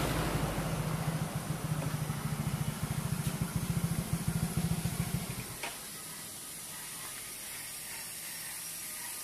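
Yamaha Mio Soul GT scooter's single-cylinder four-stroke engine, bored up to 150 cc with a Sonic piston, idling with an even pulse, then stopping suddenly about five and a half seconds in. A faint steady hiss follows.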